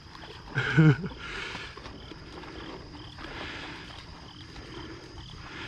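Steady high-pitched insect chirring, with a man's brief wordless call just under a second in.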